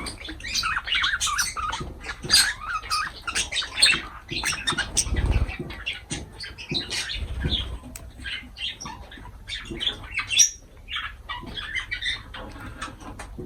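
Lovebirds chirping and squawking amid rapid clicks and rustling, with two short low thumps about midway.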